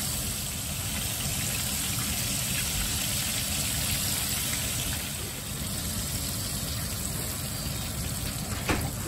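Breaded fish pieces sizzling in hot oil in a stainless steel skillet, a steady frying hiss and bubble, with a single knock near the end.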